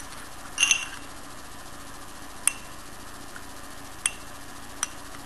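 A metal spoon stirring onion juice into honey in a small dish: a short scrape under a second in, then three light clicks of the spoon against the dish spread over the rest.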